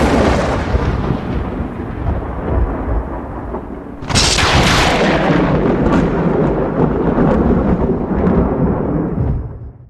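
Two loud rumbling booms: the first right at the start and the second about four seconds in, each dying away slowly over several seconds.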